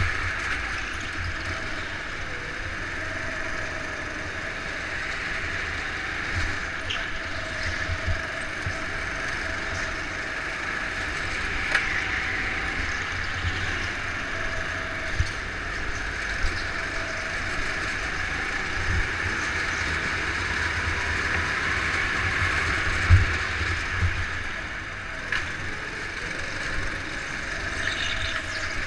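Go-kart engine running as the kart laps, heard from a camera mounted on the kart, with low rumbling knocks from the chassis shaking the camera; the sharpest knock comes about three-quarters of the way through.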